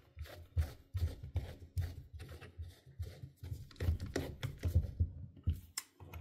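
Irregular clicks and knocks from fitting a bit holder into the keyless chuck of an Einhell TE-CD 18/2 Li cordless drill and twisting the chuck sleeve by hand, with handling thumps from the drill body.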